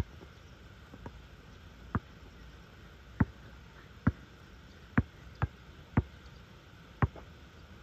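A basketball being dribbled on an asphalt court: sharp single bounces about once a second, unevenly spaced.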